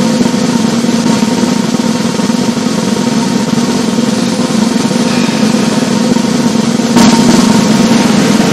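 Continuous drum roll on a snare drum. About seven seconds in a sharp accented hit lands, and the roll goes on louder after it.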